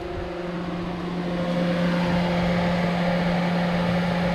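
Factory GM electric radiator cooling fans on a 2004 Silverado running at high speed, switched on through an HP Tuners scanner to check their wiring. A steady hum that builds over the first second or two, then holds.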